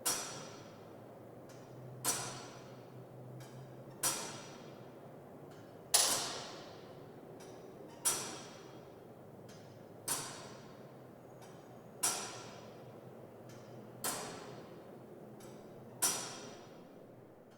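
Big Ben's clock mechanism ticking slowly: one sharp metallic tick every two seconds, each ringing briefly as it fades, with fainter clicks between the main ticks.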